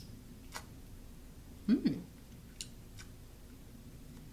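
A person quietly eating a soft marshmallow: a few faint mouth clicks and smacks, with a short hummed "mm" a little under two seconds in.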